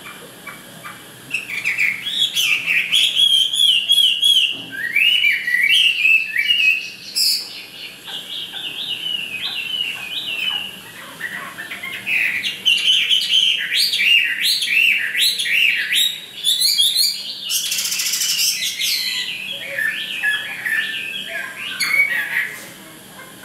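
Chinese hwamei calling in loud, rapid runs of quick sliding notes, phrase after phrase, beginning about a second in and stopping shortly before the end. About three-quarters of the way through there is a brief harsh burst of noise.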